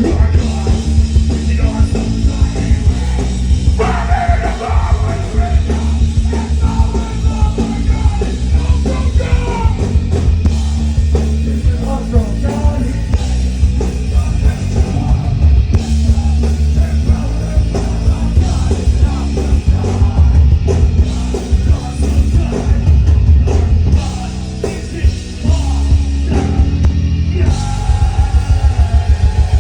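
Live ska-punk band playing loud, fast rock music with sung and shouted vocals over heavy drums and bass. Near the end the drums switch to a fast, even pounding beat.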